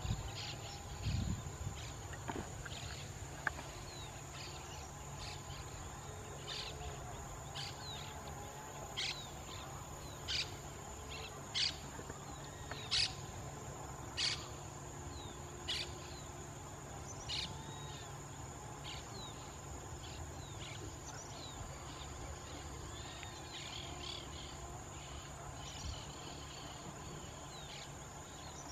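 Outdoor ambience of birds and insects: a steady high-pitched insect trill with faint scattered bird chirps, and a run of about seven short sharp calls roughly a second and a half apart in the middle stretch.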